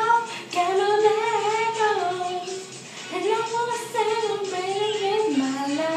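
A girl singing unaccompanied, holding long notes whose pitch bends up and down, with brief breaks between phrases.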